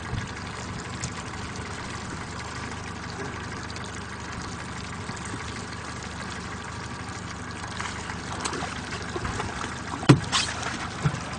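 Boat motor running steadily, with water trickling against the hull. A sharp knock comes about ten seconds in.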